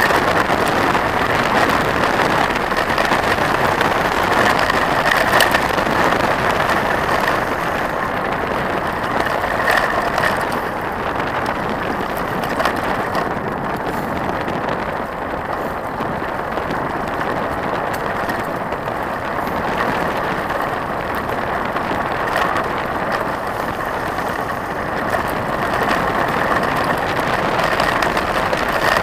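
Trek 4900 mountain bike rolling along a gravel forest road, heard from the handlebar: a steady crunch of tyres on gravel with many small rattles and clicks from the bike, mixed with wind on the microphone.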